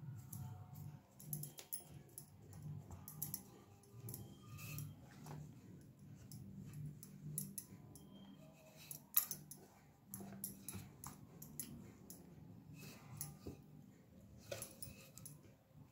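Stuffed paratha dough being shaped by hand and rolled out with a wooden rolling pin on a floured board: faint soft rhythmic strokes, about two a second, with scattered light clicks and taps.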